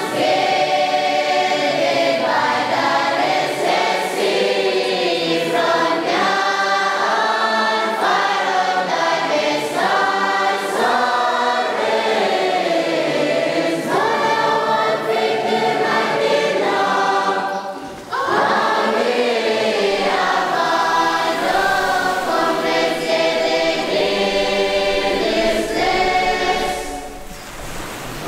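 Choir singing, several voices together, with a brief break about two-thirds of the way through.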